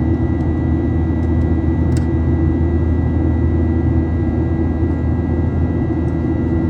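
Airplane engine noise: a steady low drone with a thin constant whine above it, unchanging in level.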